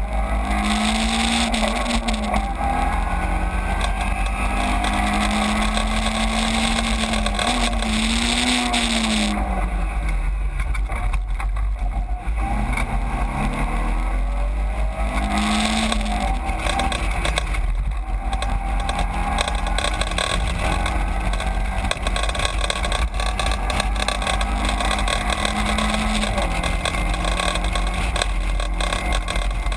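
Caterham 7 race car's engine heard from the open cockpit, its revs rising and falling several times through gear changes and bends, over a steady rush of wind and road noise.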